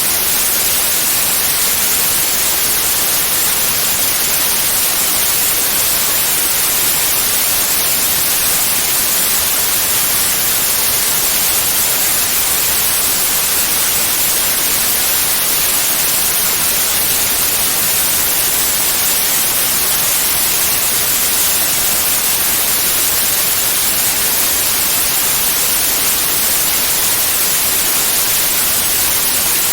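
Steady white noise for tinnitus masking: an even, unbroken hiss at constant loudness, strongest in the treble.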